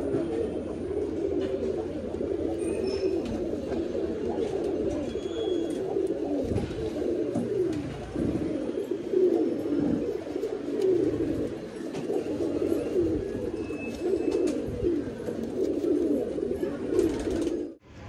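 Domestic high-flyer pigeons cooing, many birds at once with overlapping coos.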